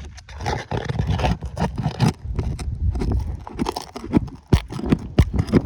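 A tool scraping and knocking against asphalt roof shingles as a roofing nail is worked loose and pried out, with irregular sharp clicks and taps.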